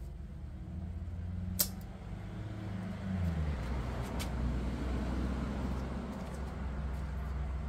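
An engine running steadily with a low hum that drops in pitch about three seconds in. A single sharp click comes shortly before the pitch drop.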